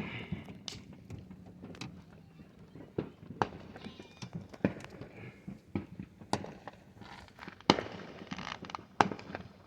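Fireworks and firecrackers going off at a distance: scattered sharp pops and bangs at irregular intervals, the loudest bang about three-quarters of the way through.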